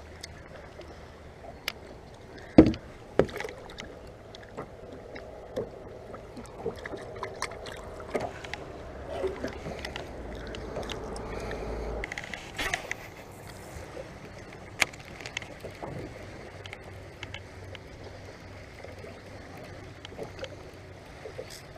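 Knocks and clicks of gear against a fishing boat, with one sharp thud about two and a half seconds in, over a steady low hum and water noise.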